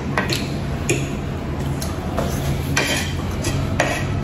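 Metal fork and spoon clinking and scraping against a ceramic plate while eating, with a handful of sharp clinks spread through.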